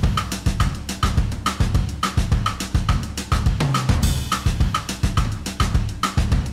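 Background music: a steady drum-kit beat with a bass line.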